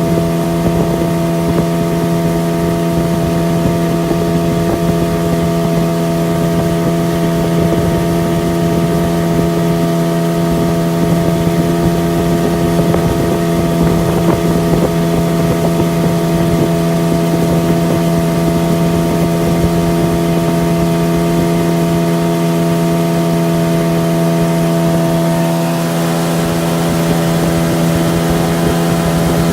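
A jon boat's outboard motor running steadily underway, with wind buffeting the microphone. Its tone shifts slightly near the end.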